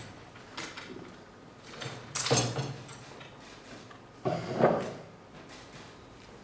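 A stool knocking and scraping as it is handled and set down on a stage floor, with the loudest clatters about two seconds in and again just after four seconds.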